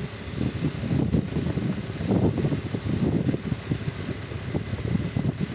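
Wind buffeting the microphone of a moving rider: an uneven, gusty low rumble with no clear engine note.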